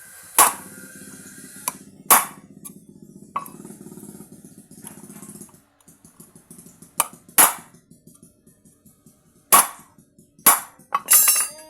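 About eight sharp, irregularly spaced strikes of a hammer on steel plate, the last one ringing briefly, over background music with a low pulsing beat that thins out about halfway through.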